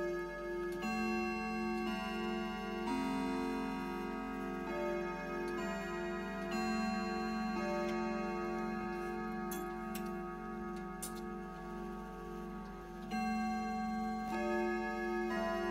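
Howard Miller grandfather clock chiming a melody: ringing metallic notes that overlap and linger, a new note every second or two. A couple of sharp clicks come about ten seconds in.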